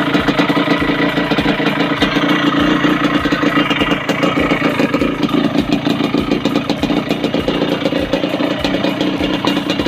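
Yamaha DT125's two-stroke single-cylinder engine running steadily with a fast, even pulse.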